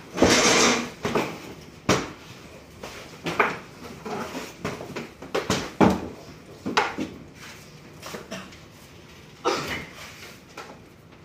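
Clatter of manual screen printing: wooden-framed screens knocking down onto the printing tables at irregular intervals, with a couple of longer scraping sounds between the knocks.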